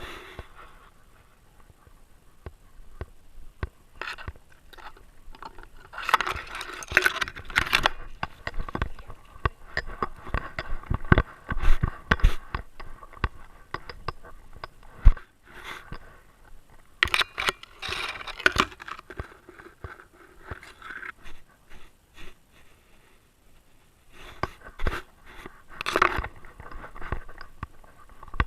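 Irregular scrapes, knocks and rustles of a GoPro camera strapped to a Great Dane, its housing and mount rubbing and bumping as the dog moves. Louder clusters come about six to eight seconds in, around seventeen to nineteen seconds, and again near twenty-six seconds.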